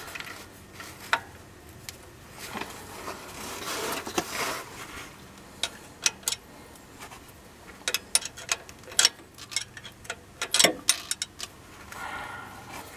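Socket ratchet clicking in short, irregular runs as a 15 mm pulley mounting bolt is driven in, with tools rubbing and knocking against metal; the clicks come thickest and loudest in the second half.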